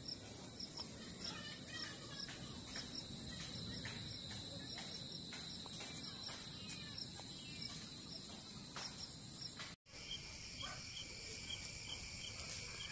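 Insects chirping outdoors: short high chirps repeating two or three times a second. After a cut about ten seconds in, a steady high insect drone sets in with slower chirps beneath it.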